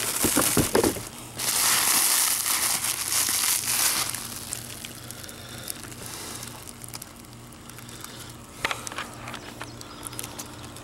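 Plastic stretch wrap and thin protective film crinkling and crackling as they are handled and pulled on a bumper cover. Loudest for the first few seconds, then fainter, with a few sharp crackles near the end.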